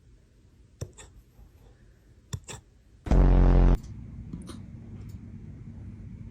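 Puppy hiccuping: small sharp hics, each a quick double click, coming about every one and a half seconds. About three seconds in, a loud pitched sound lasts just over half a second, and a steady low background sound follows.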